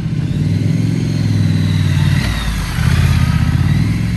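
Triumph Street Scrambler's 900 cc parallel-twin engine running through its high-mounted exhaust as the motorcycle rides up at low speed. The throttle eases slightly about halfway through, then opens again and the engine gets louder.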